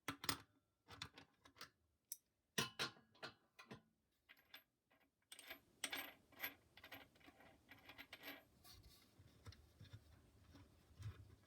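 Scattered small metallic clicks, clinks and knocks from hands working screws and parts while unbolting an industrial sewing machine motor, with a few low thumps near the end.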